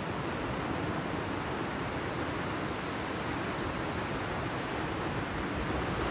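Steady, even rush of surf and wind on a beach, with no distinct events.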